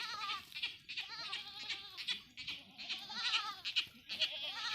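Goats bleating: several quavering calls one after another, overlapping at times.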